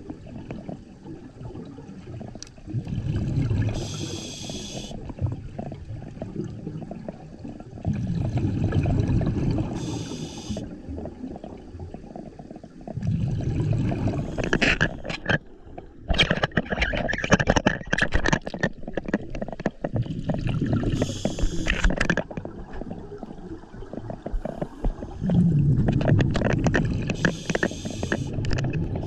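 Scuba diver breathing through a regulator underwater: short hissing inhalations alternating with longer bubbling exhalations every few seconds. In the middle comes a stretch of crackling, clicking bubbles.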